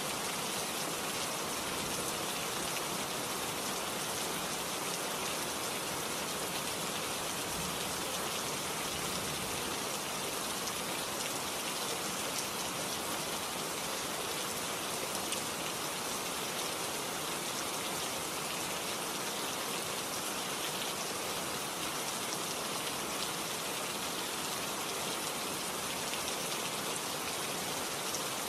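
Steady, even hiss of rain with no distinct knocks or other events.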